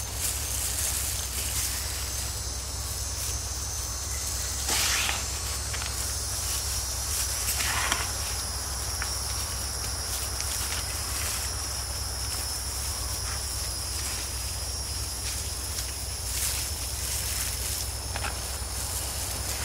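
Insects calling steadily in a high, unbroken drone, with two brief rustling scrapes about five and eight seconds in.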